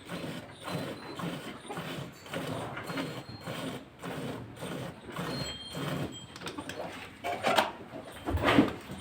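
Cow being hand-milked: milk squirting into a pail in quick, even strokes, about two a second. A louder, longer noise comes near the end.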